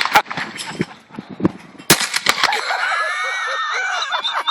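A shotgun fires a novelty special cartridge with a sharp bang about two seconds in. The shot is followed by a wavering, whistling shriek that lasts a couple of seconds.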